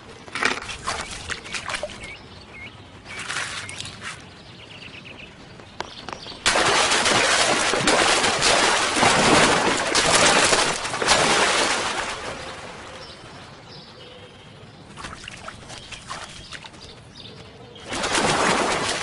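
A big water splash, a body plunging into a pond: a sudden loud rush of spray about a third of the way in that runs several seconds and fades away. Softer short sounds come before it, and another burst of rushing noise rises near the end.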